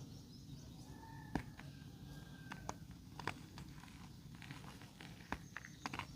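Clumps of red dirt crumbling and crunching, with scattered sharp crackles at irregular moments over a low steady hum.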